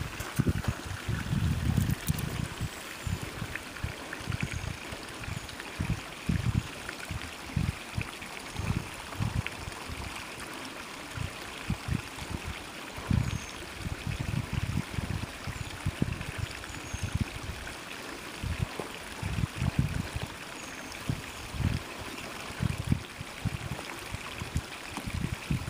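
Wind gusting across the microphone in irregular rumbling puffs, over a steady, even trickle of water.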